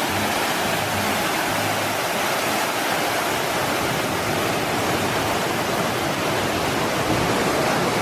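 Steady rush of white water from a small waterfall tumbling over rock rapids.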